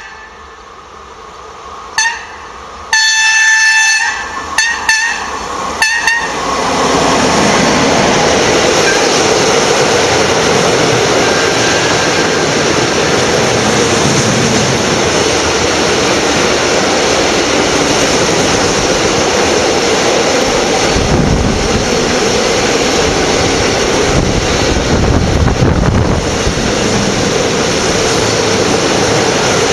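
A train passing close by at speed: a loud, steady rush of wheel and rail noise sets in about six seconds in and holds, growing deeper around three quarters of the way through. Before it come a few short pitched blasts.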